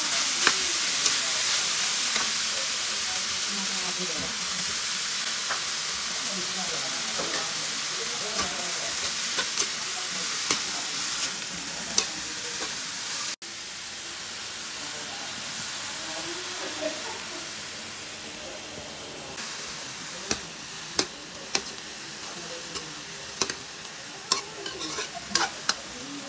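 Mung bean sprouts sizzling as they are stir-fried in a wok, with a metal ladle-spatula scraping and clinking against the pan. The sizzle is louder in the first half and drops to a quieter level after a sudden cut about halfway through. The clinks come more often near the end.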